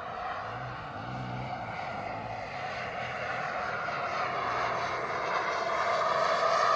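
Twin model jet turbines of an RC F-22 Raptor in flight: a steady jet rush and whine that grows steadily louder as the model flies closer.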